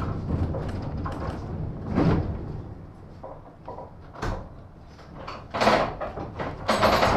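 Inside a 1915 Ringhoffer tramcar: a rumble that fades away over the first few seconds, then several sharp knocks and clatters in the last three seconds.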